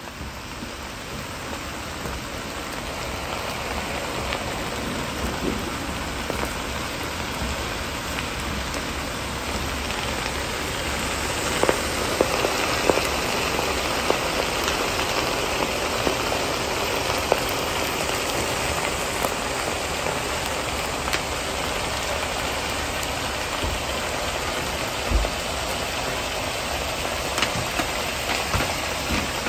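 Sizzling in a hot wok as chili oil is poured onto fried chicken and scallions, a dense hiss that builds over the first several seconds, with a few sharp pops and crackles around the middle.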